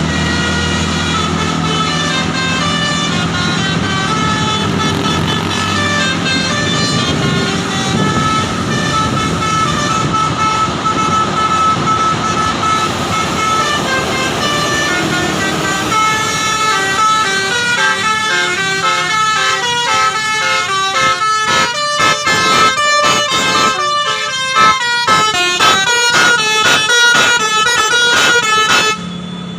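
Bus basuri 'telolet' multi-tone horn playing a melody: held notes at first, then quick stepping notes from about halfway, cutting off abruptly near the end. A low steady drone sits underneath near the start.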